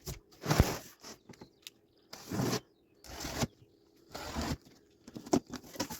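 Packaging being handled and torn open: several short scraping, tearing bursts about a second apart, with a few sharp clicks near the end.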